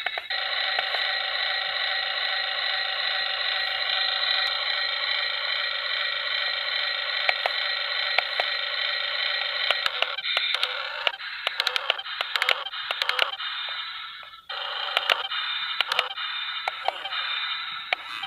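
Steady electronic tone from a toy's small speaker, thin with no bass. From about ten seconds in, sharp plastic clicks and taps join it, and the tone cuts out briefly before resuming.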